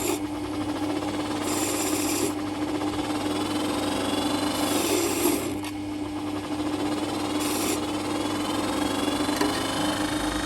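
A motor running steadily with a constant hum, with short hissing bursts that come and go.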